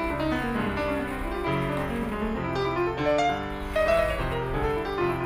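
Background music led by piano: a run of held notes moving in pitch over sustained low bass notes.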